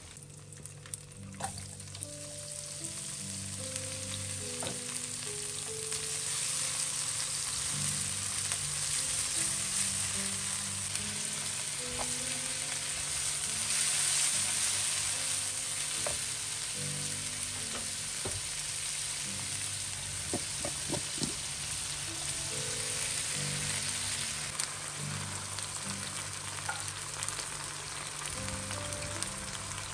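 Hot cooking oil sizzling in a wok as food fries, stirred with a silicone spatula, with a few light clicks and scrapes. The sizzle swells a few seconds in and is loudest around the middle. Soft background music plays underneath.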